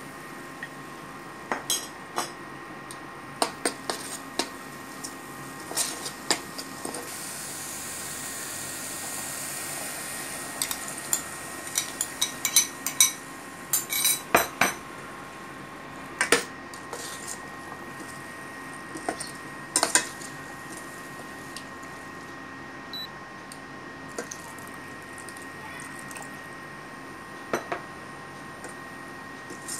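A steel spoon clinking, knocking and scraping against a stainless steel cooking pot as masala paste and boiled chickpeas are stirred, in many short sharp strikes. A steady faint high hum runs underneath.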